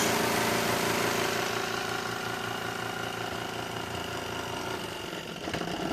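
Spin dryer of a portable washing machine spinning wet clothes, a steady motor hum that gets gradually quieter as the drum winds down after the lid-opening automatic shut-off.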